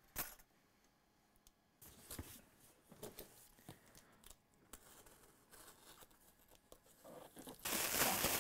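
Rustling and crinkling of a cardboard box and plastic wrapping as a graphics card is unpacked by hand, a run of irregular crackles that is loudest near the end. A single click comes just at the start.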